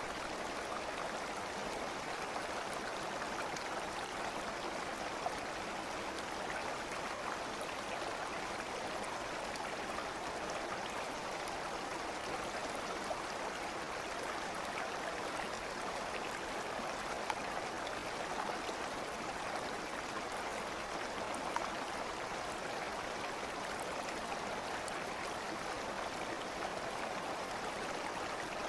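Steady running water with an even, unbroken flow, a few brief ticks standing out above it.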